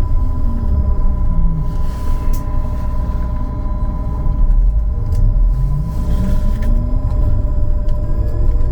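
Trolleybus running with low road rumble and a steady electrical whine; the traction motor's whine falls in pitch as it slows in the first second or so, then rises again as it picks up speed near the end.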